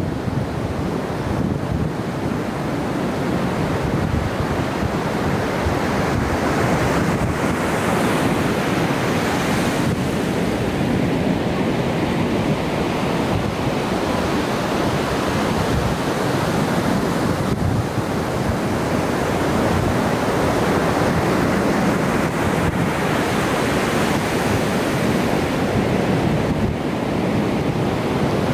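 Ocean surf breaking and washing in with a continuous rush, with wind rumbling on the microphone.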